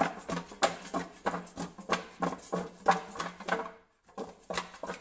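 Chicken wings knocking against a stainless steel tray as it is shaken to toss them in seasoning, an even rhythm of about three shakes a second that stops briefly near the end.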